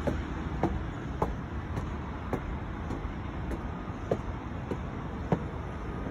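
Footsteps walking up stone steps and onto a tiled deck, one sharp step a little more often than every half second, over a steady hum of city traffic.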